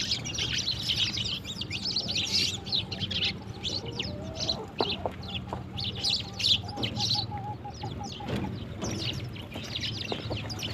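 A flock of sparrows chirping in a busy, continuous chatter. Behind it a chicken gives a wavering call for a few seconds in the middle.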